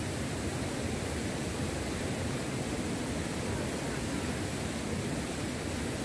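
Steady rushing of a waterfall and stream cascading over rocks.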